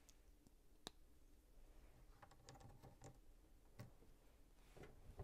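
Faint, sparse clicks of plastic LEGO pieces being handled and fitted: a sharp click about a second in, a quick run of small clicks around the middle, and another single click later.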